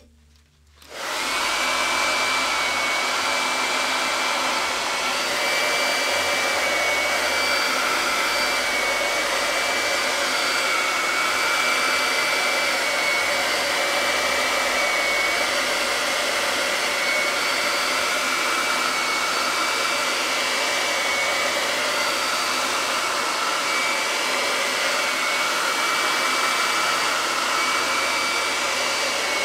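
Handheld hair dryer switched on about a second in and running steadily, a rush of air with a steady high whine, blowing over wet wood-burning gel paste to dry it.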